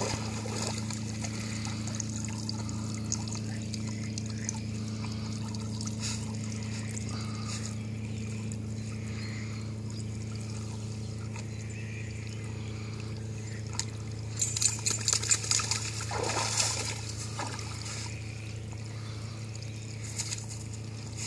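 Lake water splashing and trickling around a dog wading in the shallows, with a run of louder splashes about fourteen seconds in, over a steady low hum.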